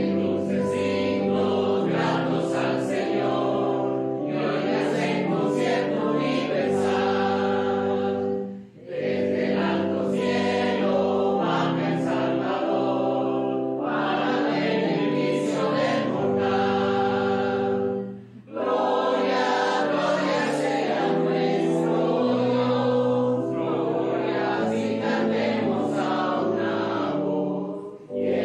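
Small mixed church choir of men and women singing a hymn together, in three long phrases with short breaks between them.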